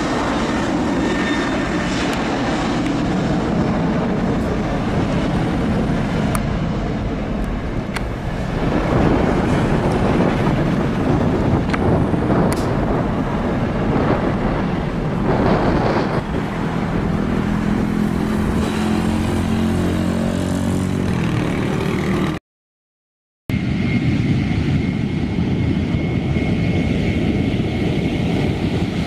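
CFM56-7B turbofan engines of a Lion Air Boeing 737-900ER running loud as the airliner rolls along the runway, with strong wind buffeting the microphone. After a brief cut, a second Lion Air 737-900ER rolls close past, its engines giving a steady high whine over the rumble.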